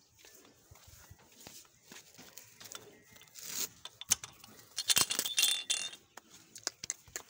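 Scattered metallic clinks and rattling, with a short hiss about three and a half seconds in and a louder cluster of ringing clinks around five seconds in.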